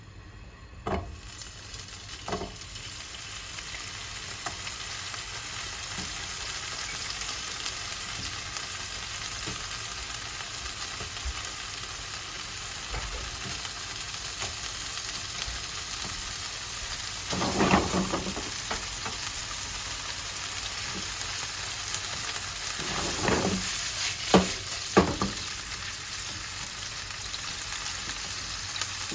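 Food sizzling in a hot frying pan. The sizzle starts about a second in with a knock and builds to a steady hiss, with a few utensil knocks and scrapes against the pan as it is stirred, the loudest around the middle and near the end.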